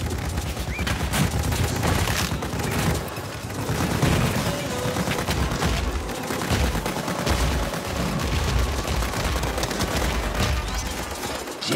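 Film action soundtrack: a dense, continuous clatter of rapid cracks and impacts over a low rumble, with faint music underneath.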